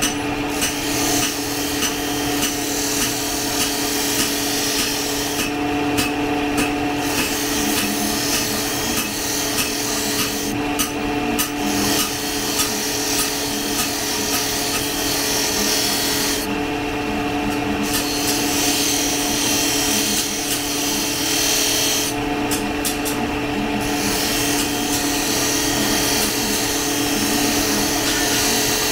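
Steel being ground on an electric grinder, shaping a wrench into a dart: a steady motor hum under a harsh scraping hiss. The grinding stops for a second or so about every five or six seconds while the motor keeps running.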